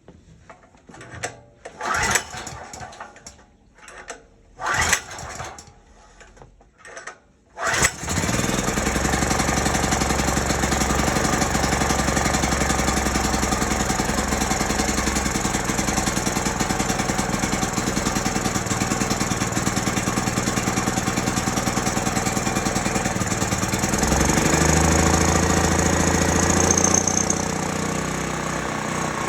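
Small single-cylinder portable generator engine being cranked over in three short goes. It catches about eight seconds in and runs steadily. Near the end its speed rises for a few seconds and then drops back, the surging it shows on its new carburetor.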